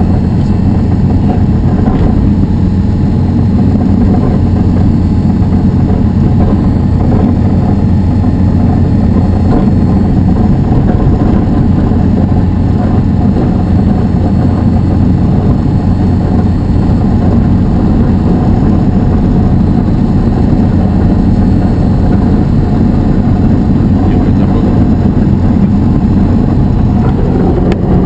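Diamond DA-20 light aircraft's piston engine and propeller running steadily, heard from inside the cockpit as a loud, even drone.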